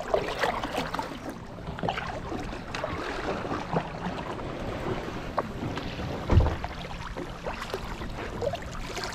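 Water moving around kayaks, with small scattered knocks and splashes and one louder low thump about six and a half seconds in.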